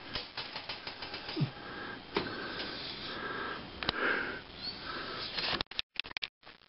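Dachshund sniffing repeatedly in short, quiet bursts, with small clicks and rustles around it; the sound cuts out in brief gaps near the end.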